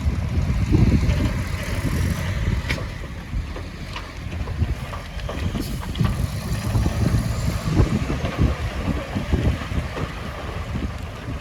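Heavy diesel earthmoving machinery running, a low uneven rumble with scattered knocks, and wind buffeting the microphone.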